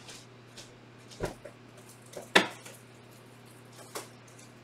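Several knocks and clacks of hard objects being handled and set down, the loudest a sharp clack about two and a half seconds in.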